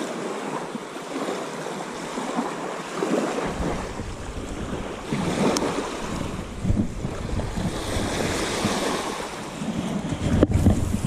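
Small waves washing in and breaking at the water's edge on a sand and shingle beach, with wind buffeting the microphone from about three seconds in.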